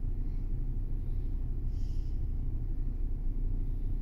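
A steady low rumble, with faint wet squishes as a hand rubs mustard paste and dry spices into raw chicken pieces.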